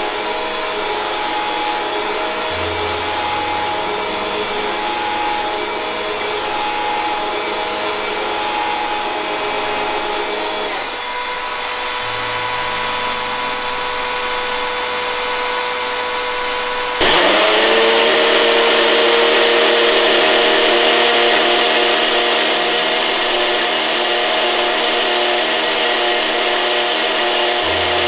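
Upright vacuum cleaner running steadily. About two-thirds of the way through, a louder single-serve blender motor cuts in abruptly and runs steadily.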